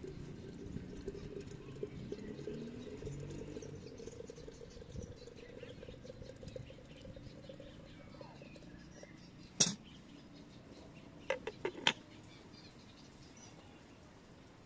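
Hot water pouring from a stainless-steel kettle into a ceramic teapot, a steady splashing stream whose pitch creeps upward as the pot fills, fading out after about nine seconds. Then one sharp clink, followed about two seconds later by a quick cluster of three more.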